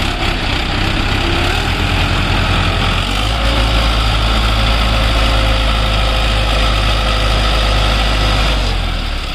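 Mahindra Arjun 605 DI tractor's diesel engine running as the tractor pushes through deep paddy-field mud. About three seconds in the engine note deepens and gets louder, then eases back near the end.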